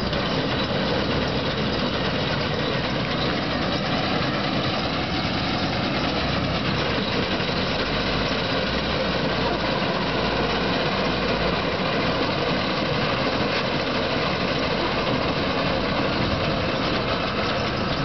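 Combine harvester running steadily as it drives slowly through standing rice, its engine and cutting and threshing mechanism making an even, continuous mechanical drone.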